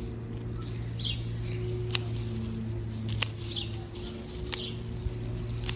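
Scissors snipping through stems of flowering choy sum: three sharp snips, a little over a second apart. Birds chirp in the background over a steady low hum.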